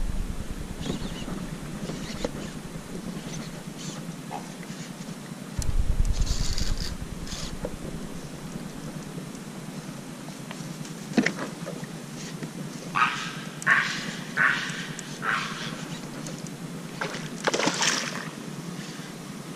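Handling noise on a kayak over a steady hiss: a brief low rumble about six seconds in, then a run of short scrapes and clicks from hands working gear close to the microphone.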